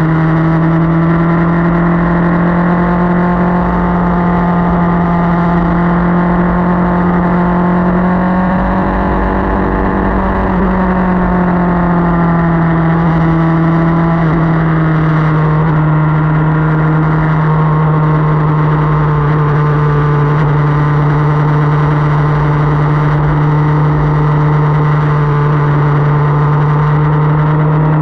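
Motorcycle engine running at a steady cruise while riding, its pitch rising briefly about a third of the way in and then settling back a little lower. Wind rumble on the microphone sits underneath.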